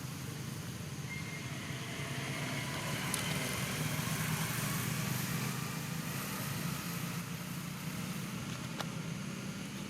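Steady low engine hum with a hiss over it, swelling slightly in the middle, like a motor vehicle running nearby.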